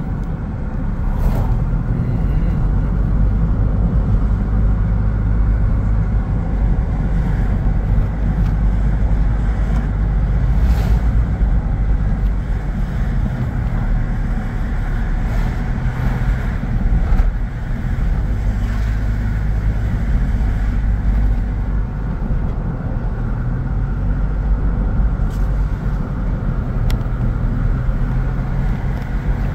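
Car driving along a road: a steady engine hum under a continuous rumble of road and tyre noise.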